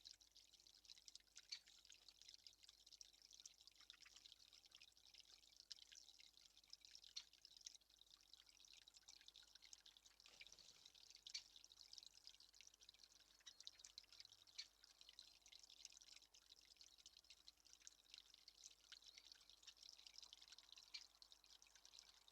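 Near silence: a faint, even crackle of many tiny ticks over a light hiss.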